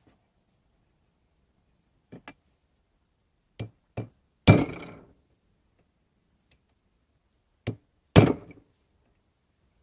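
Hammer striking a chisel into a railroad spike, cutting a skull's nose. Two light taps, then two firmer blows and a hard blow that rings on, then another tap and a second hard, ringing blow near the end.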